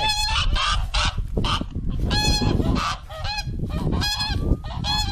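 Geese honking, a run of short repeated calls about one or two a second.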